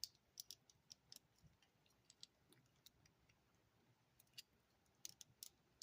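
Faint, scattered small clicks and taps of hard plastic action-figure parts being handled and fitted, coming in small clusters with pauses between.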